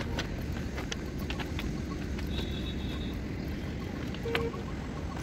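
Irregular crunching footsteps on railway track ballast, over a steady low rumble of wind on the microphone.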